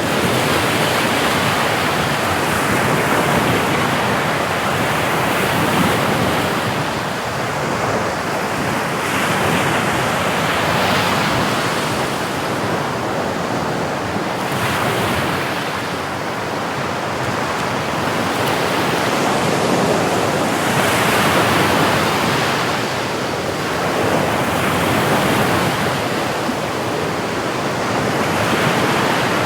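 Sea waves breaking and washing on the shore, a steady rush that swells and ebbs every few seconds, with wind on the microphone.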